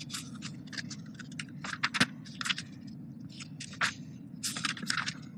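Paper rustling and light irregular clicks from a hardbound book being handled and its pages leafed through, over a steady low room hum.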